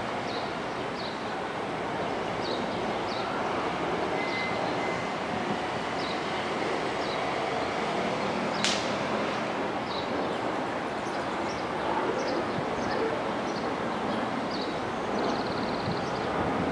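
Steady rumble of city traffic noise, with small birds chirping in short repeated calls over it and one sharp click about halfway through.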